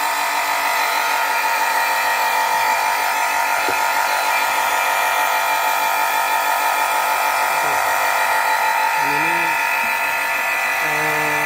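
Grundfos semi-jet water pump of about 400 W running with a steady, very loud high whine, a noise the owner puts down to worn motor bearings.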